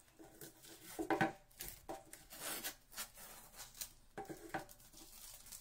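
Faint, irregular taps, knocks and rustles of a stretched canvas being picked up and tilted on a tabletop, with a couple of louder knocks about a second in.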